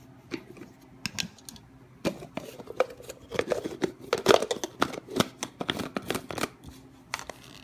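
Quick clicks and knocks of hard plastic parts being handled: a Magic Bullet blender's cup and lid being fitted together and set on the base. The knocking is busiest in the middle.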